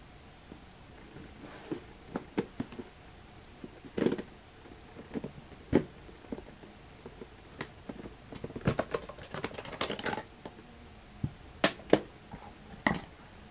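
Plastic VHS clamshell cases and a videocassette being handled: scattered clicks and knocks as cases are pulled from a row and opened and the tape is lifted out, with a busier run of small plastic rattles past the middle and a few sharp clicks near the end.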